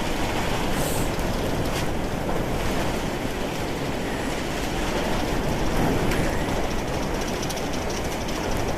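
Blizzard wind blowing hard, buffeting the microphone as a continuous, uneven low rumble with a rushing hiss over it.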